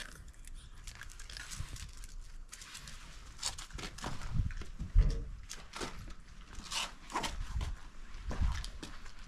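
Shiba Inu biting and chewing a crisp, brittle chicken-breast jerky treat: a run of irregular short crunches and crackles, with a few dull thumps, the loudest about five seconds in.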